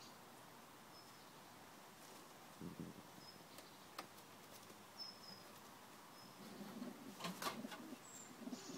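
English Carrier pigeons cooing softly and low: a short coo about three seconds in and a longer run of cooing near the end, with a brief rustle among them. Faint, short high chirps of small birds come every second or so.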